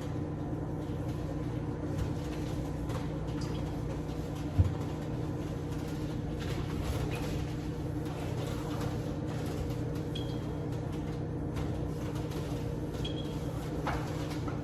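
A towel rubbing and wiping over a microwave's outside, with faint ticks and short squeaks, over a steady low hum. There is one sharp thump about four and a half seconds in.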